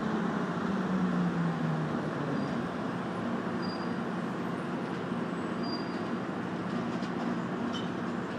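Airport people-mover train heard from inside the car, running into the station and slowing: a steady rumble with a motor tone that falls in pitch over the first two seconds, then a steady hum.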